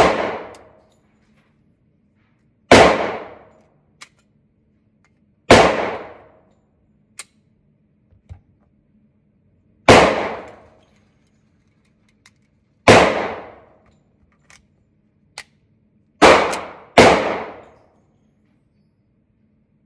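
Gunshots echoing in an indoor shooting range: six sharp reports a few seconds apart, two of them close together near the end, each trailing off in a long echo. Small metallic clicks and clinks come between the shots.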